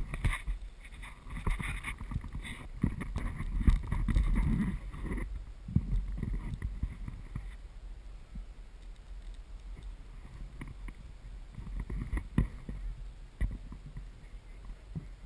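Wind buffeting the microphone of a body-worn camera, an uneven low rumble in gusts with occasional bumps, strongest in the first few seconds and settling after.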